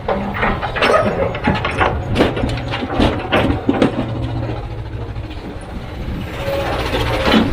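Heavy diesel machine engine running with a low steady rumble, under a run of irregular sharp clanks and knocks, heaviest in the first half.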